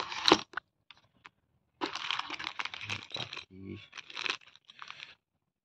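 Polythene packaging crinkling and rustling as plastic phone-mount parts are handled and unwrapped, with a sharp click just after the start. The rustling comes in two spells, the second ending about a second before the end.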